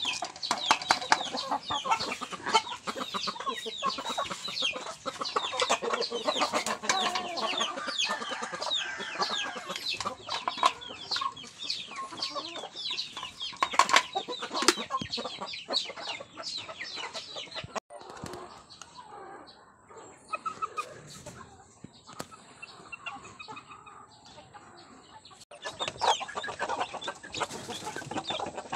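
A flock of chickens clucking and calling in quick overlapping bursts as they crowd to feed, with a couple of sharp knocks about fourteen seconds in. The calling drops away to a quieter stretch in the middle and picks up again near the end.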